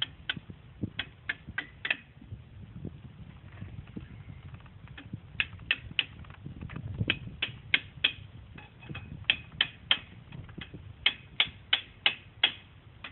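Hammer tapping on steel in quick runs of three to six light strikes, seating the differential carrier bearing and its shim in a Dana 70 heavy-duty axle housing.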